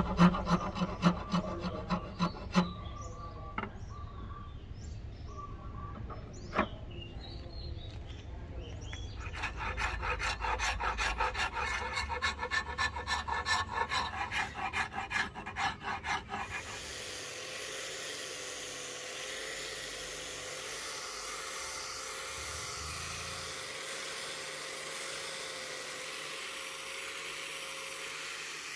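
A steel hand file rasping across a rosewood axe handle in quick back-and-forth strokes, with a sparser, quieter stretch of several seconds in between. About two-thirds of the way in the filing stops and a steady hiss with a faint even hum takes over: an angle grinder with a sanding pad running on the handle.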